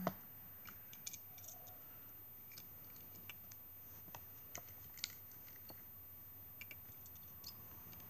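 Faint scattered clicks and taps of die-cast toy cars being handled and moved about on carpet, with a sharper knock at the start.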